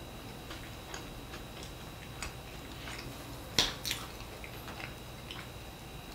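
Small handling sounds at a table: faint scattered clicks and taps, with two sharp knocks close together a little past halfway, over a steady low room hum.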